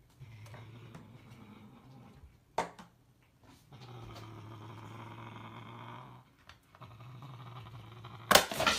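A cat growling low and steadily while holding a metal baking pan in its mouth, in long spells with short pauses between. The pan knocks sharply once about two and a half seconds in, and clatters loudly near the end.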